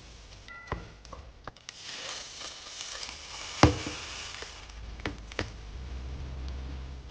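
Kitchen work sounds: utensils and cookware knocking and clicking at irregular intervals, with one sharp, loud knock about halfway through.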